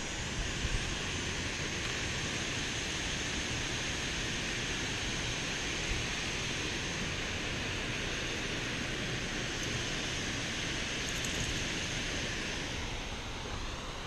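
Steady rush of water pouring over a low dam spillway.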